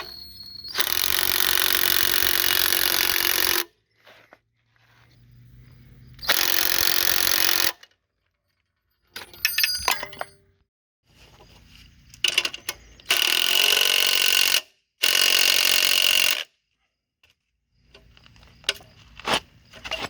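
A power tool working metal, run in four bursts of one and a half to three seconds each that start and stop abruptly, with light clinks and handling sounds between them.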